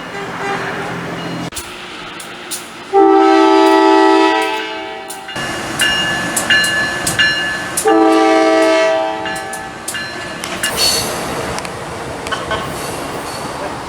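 Train air horn sounding a chord of several notes: a long blast about three seconds in, a few short toots, then a second long blast around eight seconds. Underneath, the train's wheels click and rumble on the rails.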